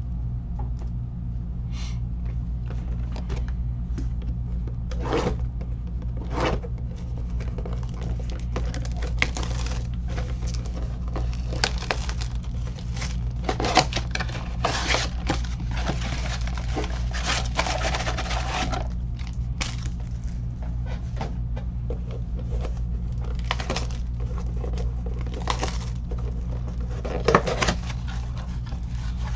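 Trading cards and foil packs being handled: scattered rustles, scrapes and light clicks, busiest in the middle, over a steady low hum.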